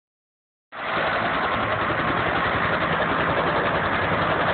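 Helicopter running on the ground: a steady, loud rotor and engine noise that comes in abruptly a little under a second in.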